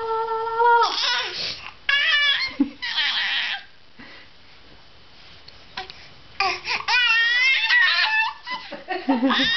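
A young child's voice: a held note that stops just under a second in, then bursts of giggling and warbling vocal sounds, a pause of about two seconds, and more giggly squeals near the end.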